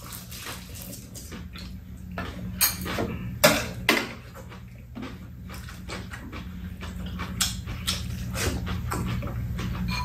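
Metal spoons and chopsticks clinking against bowls and a pan during a meal, with a few sharper clinks about three to four seconds in, over a low steady hum.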